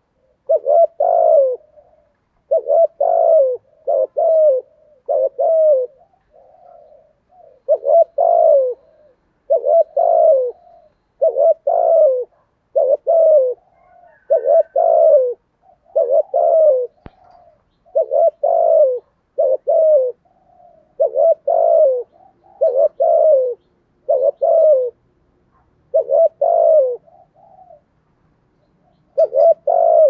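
Spotted dove cooing over and over, a low 'thổ'-type voice as Vietnamese dove keepers call it, about one coo a second with a few brief pauses.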